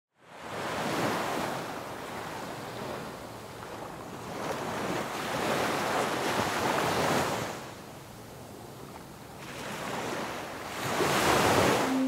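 Sea surf: waves breaking and washing up the shore in three swells, about a second in, from about five to seven seconds in, and again near the end.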